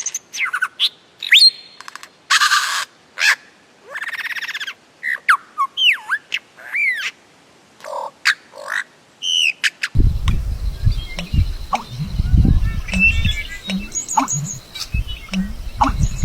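A series of varied bird calls: short gliding whistles, rising and falling sweeps and two longer buzzy notes, separated by gaps. Around ten seconds in, a rougher recording takes over, with a low rumble under further scattered calls.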